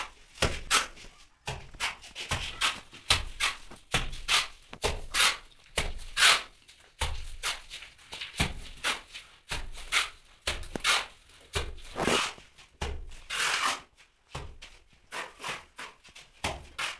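Mason's trowel scooping cement mortar off the floor and throwing it against a brick wall: a quick, uneven series of short wet slaps and scrapes, about two a second.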